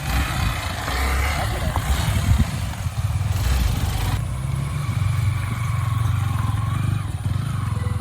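Single-cylinder motorcycle engine running and revving as the bike sets off.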